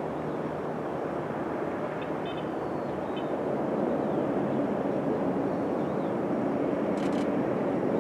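Twin turboprop engines of an ATR airliner, heard from a distance as a steady droning rush that grows a little louder about halfway through.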